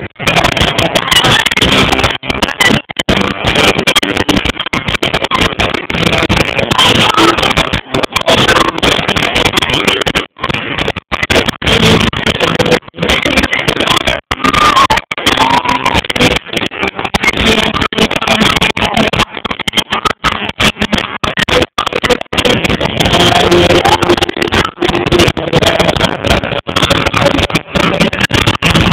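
Live hard rock band with electric guitars and drums playing loud, recorded close to the PA speakers: the sound is harsh and distorted and cuts out for an instant again and again.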